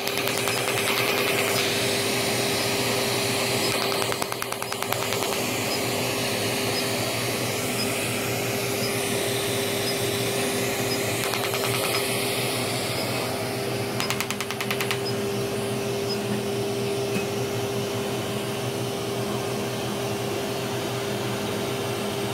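Er:YAG ablative resurfacing laser system running with a steady whirring and a constant tone. Three short runs of rapid clicking, at the start, about four seconds in and about fourteen seconds in, are the handpiece firing pulses onto the skin.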